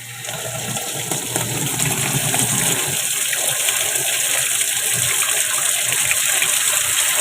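Water gushing into a washing machine tub, coming on suddenly, building over the first second and then running steadily. The tub is being filled to test whether the just-cleaned drain valve still leaks with the drain selector closed.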